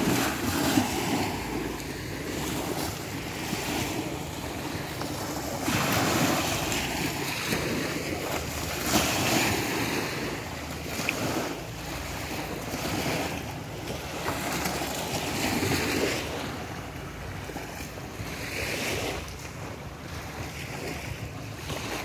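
Small waves breaking and washing up a sandy shore, the surf swelling every three or four seconds, with a low rumble of wind on the microphone.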